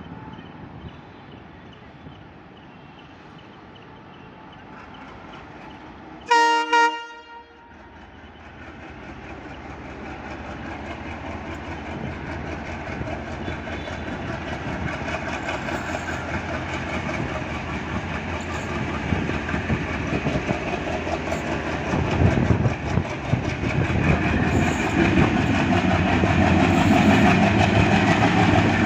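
WDM3A diesel-electric locomotive gives a short horn blast about six seconds in. Its turbocharged ALCO engine then grows steadily louder as it throttles up and accelerates the passenger train away from a standstill.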